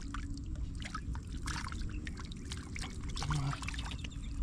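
Water trickling and pouring, with many small irregular splashes and drips.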